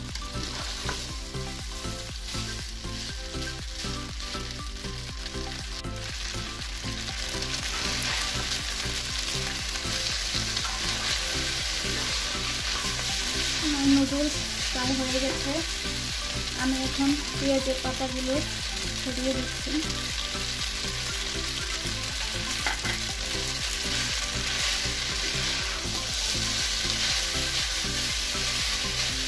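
Chicken chow mein noodles and vegetables sizzling in a nonstick frying pan while being tossed and stir-fried with a utensil: a steady frying hiss under the stirring.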